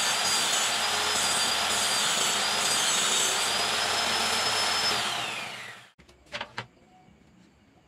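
Circular saw mounted under a homemade table-saw top, running with a steady high whine as a plywood sheet is fed through the blade. About five seconds in, the whine falls as the saw winds down, and soon after come two short knocks.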